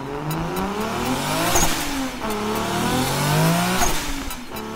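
Car engine revving, its pitch climbing to a peak twice, about a second and a half in and again near four seconds.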